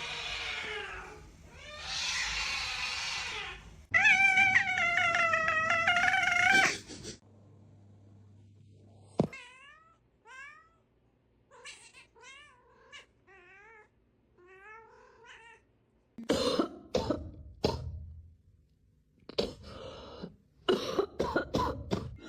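A cat: two breathy hisses, then a loud, long, wavering yowl about four seconds in, followed by a run of short high calls. Scattered knocks and clatter come near the end.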